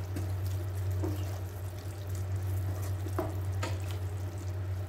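Wooden spatula stirring beef strips and onions in a simmering non-stick pan, the sauce bubbling wetly, with a few sharp taps of the spatula on the pan about one, three and three and a half seconds in. A steady low hum sits under it all.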